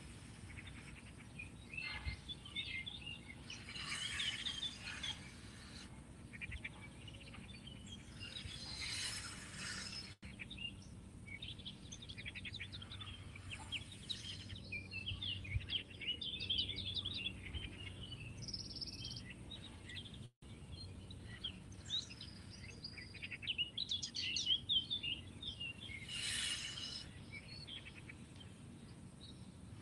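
Birds chirping and singing throughout, with a soft rush of breath roughly every five seconds from slow, deep breathing.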